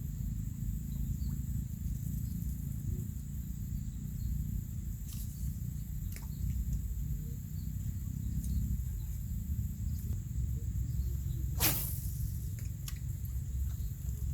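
Outdoor ambience: a steady low rumble under a constant high insect drone, broken by a few sharp clicks, the loudest about twelve seconds in.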